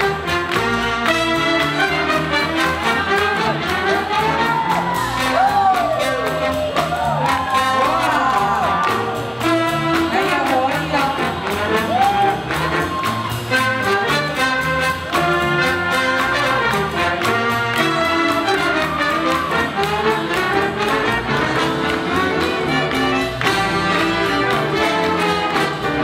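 Swing big band playing a jazz tune, with trumpets and trombones over drums and bass.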